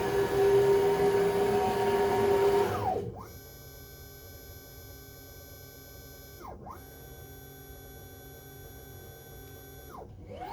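NEMA 34 motors of a 5 Prime 2642 CNC router whining as the axes move. The pitch falls as a move slows about three seconds in; a quieter whine then dips and recovers twice as the motion changes, and rises again at the end.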